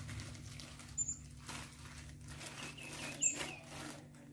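Faint rustling and crinkling of a plastic bag being handled, with small clicks, and a few short high chirps: two brief squeaks, about a second in and just after three seconds, with a quick run of softer chirps just before the second.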